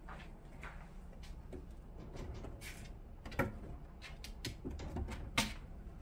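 A cat's paws batting and tapping on a clear acrylic cage front: a scatter of light taps and clicks, with two louder knocks about three and a half and five and a half seconds in, over a steady low hum.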